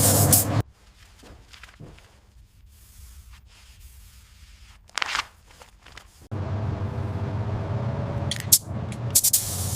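Spraying hiss over a steady machine hum. It cuts off just after the start, gives one short burst about five seconds in, and resumes about six seconds in, with a few sharp spurts near the end.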